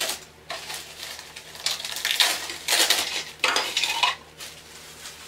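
A clear plastic bag crinkling and rustling in irregular bursts as hard plastic toy castle parts are pulled out of it, with light clicks of the plastic pieces against each other.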